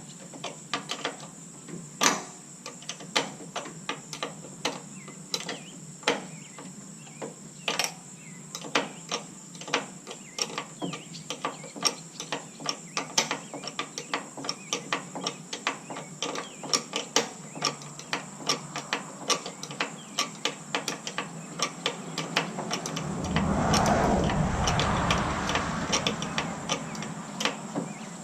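Ratchet wrench clicking in short, uneven runs as it cranks a nutsert setting tool, spreading the rivet nut so it grips behind the tailgate mount. Near the end a louder rushing noise swells for a few seconds and fades.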